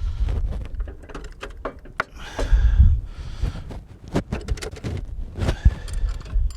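Scattered metallic clicks, clinks and knocks of a snowblower's drive chain and axle parts being handled and lined up, with a few low rumbling thumps and a brief squeak near the end.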